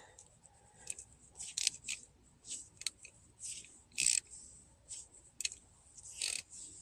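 About ten short, irregular metal clicks and scrapes from an 18 mm socket and breaker bar being handled at the brake caliper bolts.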